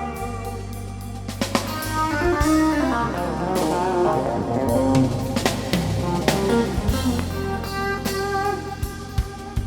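Background music: a rock-style track with guitar over a drum kit and a steady bass line.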